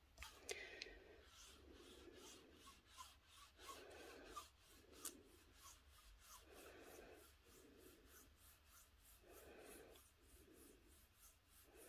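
Faint, soft rubbing of a pigment ink pad stroked back and forth over embossed cardstock, in pairs of short strokes every few seconds, with a few light ticks.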